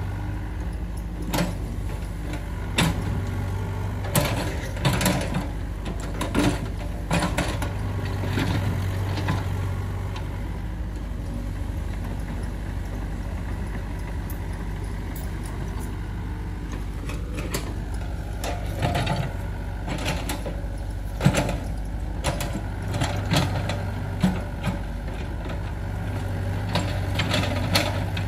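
Excavator's diesel engine running steadily while irregular sharp clanks and knocks of metal come in clusters, first in the opening seconds and again in the second half.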